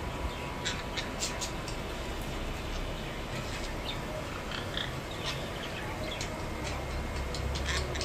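Pet parakeets giving short, scattered chirps and calls, with sharp little clicks, over a steady low background hum.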